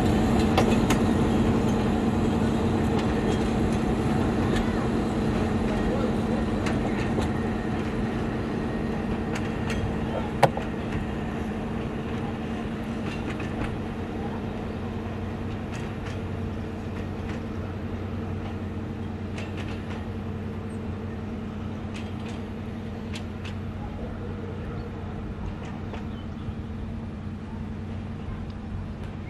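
Narrow-gauge passenger train hauled by a Lyd2 diesel locomotive rolling past and moving away, fading steadily. A steady low engine note runs under the rumble and light clicking of the wheels on the rails, with one sharp knock about ten seconds in.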